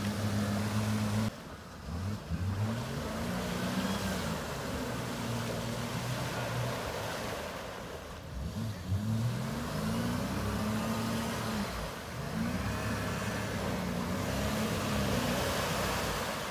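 Jeep Grand Cherokee WJ's engine revving up and down several times as it ploughs through a deep mud puddle, with water sloshing and splashing around the vehicle.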